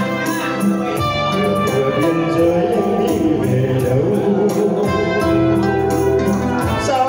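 Live band playing an instrumental passage of a Vietnamese song medley: sustained chords and melody over an acoustic guitar, with a tambourine shaken in a steady beat.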